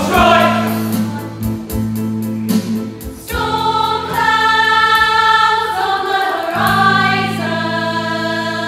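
Large ensemble cast singing together in chorus over a steady instrumental accompaniment, as in a stage musical number. About three seconds in the voices come in strongly on long held notes.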